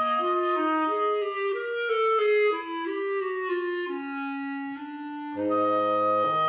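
Film score music: a melody in short stepped notes over a held high note, with lower sustained notes coming in about five seconds in.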